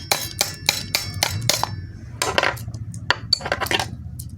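Hard objects knocking and clinking against each other, about four sharp knocks a second for the first couple of seconds, then a few longer scraping rattles.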